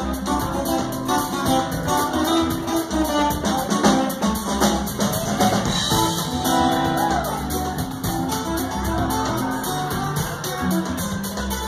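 Live band music: two acoustic guitars and an upright bass playing together.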